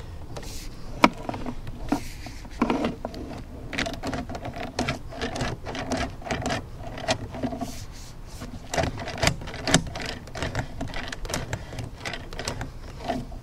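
Irregular clicks and knocks with short rattling buzzes from a drain inspection camera being fed into a kitchen sink waste line, its push cable and camera head knocking along the pipe.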